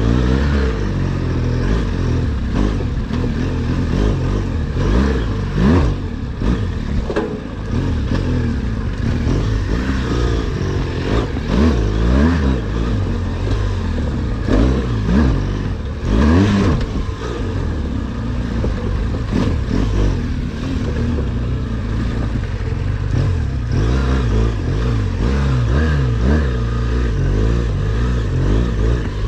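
BMW R1200GS Adventure's boxer-twin engine revving up and down again and again while riding off-road, over a steady noisy rumble. Knocks and rattles come through here and there.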